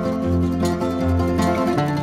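Background instrumental music with a steady beat over held bass notes.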